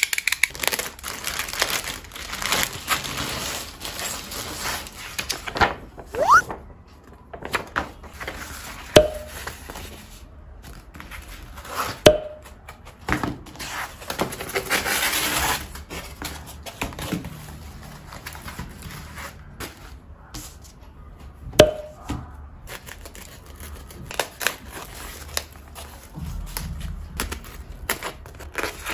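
Clear plastic packaging crinkling and tearing as a foam RC plane kit is slit open with a utility knife and unwrapped, with foam parts being handled. A few sharp clicks come about nine, twelve and twenty-two seconds in.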